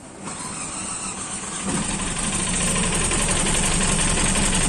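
Car engine running after being submerged in floodwater, heard close to the rear of the car. A steady rapid pulse with a low hum, growing louder about two seconds in.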